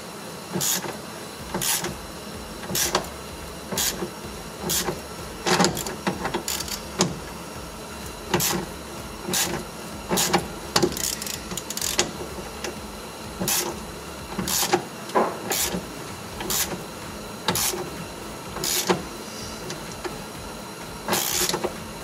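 Hand ratchet backing out a threadlocked Torx 50 seat-belt anchor bolt in short strokes, with sharp clicking and grating about once or twice a second, sometimes in quick runs. The threadlocker makes the bolt stiff to turn.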